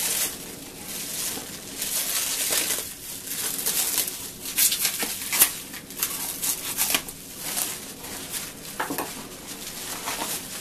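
Clear plastic shrink-wrap being slit with a knife and then torn and crinkled off a cardboard box by hand, in irregular crackles and rustles.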